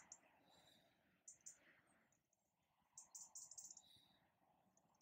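Near silence, with faint, very high-pitched trains of quick chirps: a short one about a second in and a longer one from about three seconds in.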